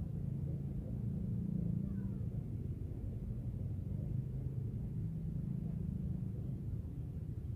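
Electric commuter train running past, a steady low rumble.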